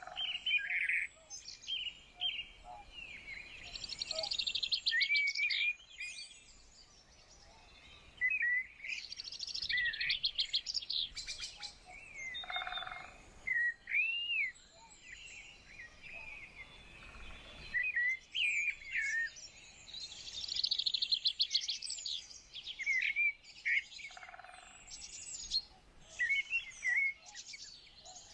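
Several songbirds singing and calling in overlapping bouts every few seconds: fast, dense trills and short sliding whistled notes.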